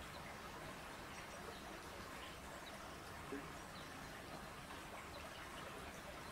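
Faint steady outdoor ambience, an even hiss with a few faint, short, high bird chirps scattered through it and one brief soft knock about three seconds in.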